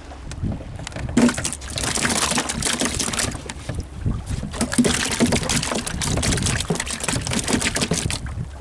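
Fishing boat at sea: a steady low rumble with wind on the microphone, and a hissing, crackling splash of water from about a second in until shortly before the end.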